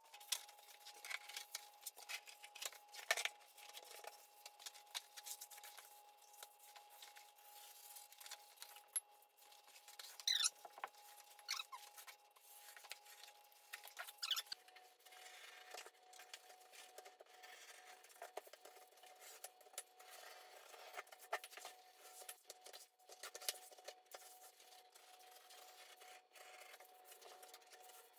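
Faint scratchy rubbing, rustling and clicking from carpet tiles being handled and set into place on the floor.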